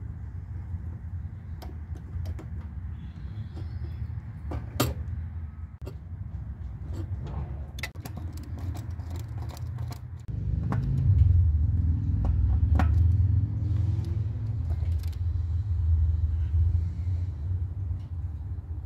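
Small metal parts clicking and clinking as the fuel-tank fittings of a motorcycle are handled and fitted, a dozen or so separate clicks. Under them runs a steady low rumble that grows louder about ten seconds in.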